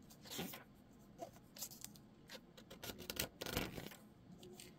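Pages of a graphic novel being turned and handled by hand: several brief, faint papery rustles and brushes.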